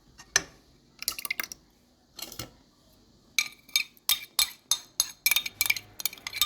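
A metal utensil clinking against a saucepan while a pastry-cream mixture is stirred. There are a few separate taps at first, then quick, fairly regular ringing clinks from about halfway in.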